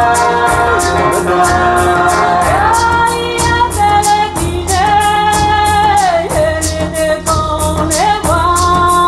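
Recorded music played back through GT Audio Works planar ribbon loudspeakers: a singer holding long, sliding notes over a quick, steady beat and a continuous bass line.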